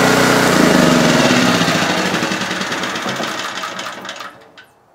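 Pro Force portable generator's small gasoline engine being switched off: it runs steadily for about half a second, then cuts out and winds down, fading away over about four seconds until it stops.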